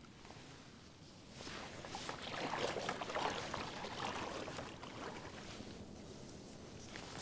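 Legs wading through knee-deep lake water, sloshing and splashing with each step. It starts a second or so in, is loudest in the middle, and eases off toward the end.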